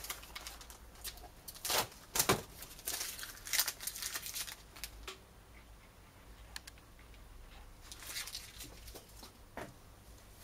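Crinkling and rustling of plastic packaging as model kit parts are handled in a cardboard box, in a few short spells during the first half. After that only a few faint clicks.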